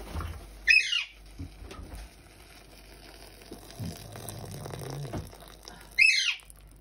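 Tap water running and splashing onto frozen peas, corn and baby corn in a bowl as they are rinsed. Twice, about a second in and near the end, a parrot gives a short shrill squawk that falls in pitch, louder than the water.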